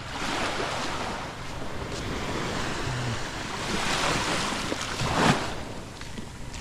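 Small sea waves breaking and washing up a sandy shore, with wind on the microphone. The surf swells twice, the second time loudest, a little after five seconds in.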